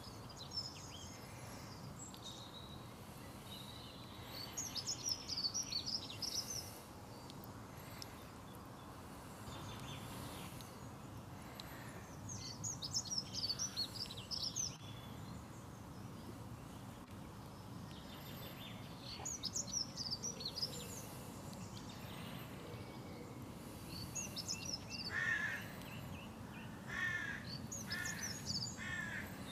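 Wild birds outdoors: a songbird sings short high twittering phrases every several seconds over steady background noise. Near the end a bird gives a run of harsher, lower repeated calls.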